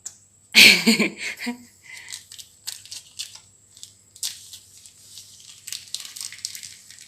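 Crinkling and tearing sounds with scattered small clicks and knocks of kitchen food preparation, with a brief loud rustle and a short vocal sound about half a second in.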